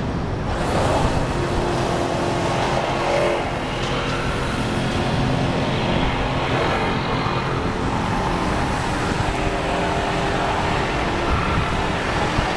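City street traffic: a steady rumble of passing cars and buses with a low engine hum.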